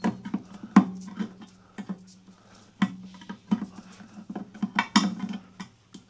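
Leatherman ARC multitool's lever-style can opener, freshly sharpened with a Dremel, punching and levering its way around a tin can lid: irregular sharp metallic clicks and crunches, several a second, the loudest about a second in and about five seconds in. The blade is cutting the lid well.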